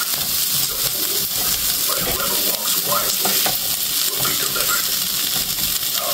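Steaks coated in mayonnaise frying in a pan on the stove, sizzling steadily.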